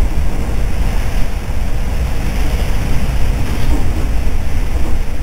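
Steady running noise of a regional passenger train heard from inside the carriage while moving: a loud, even, deep rumble of wheels on rails mixed with rushing air.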